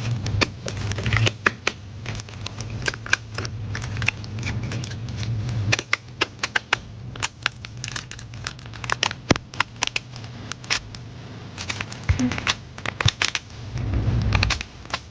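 Irregular sharp clicks, cracks and scraping as a MacBook Air keyboard is pried and peeled off its top case, its rivets popping out one after another. A steady low hum runs underneath.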